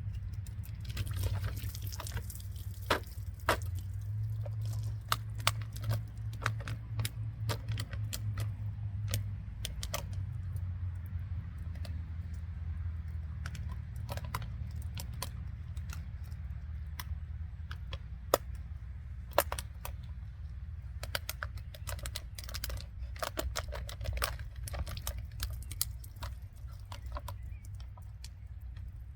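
Plastic water bottle crinkling and clicking in irregular bursts as a small folding knife scrapes and pokes at it, failing to cut through, over a steady low hum.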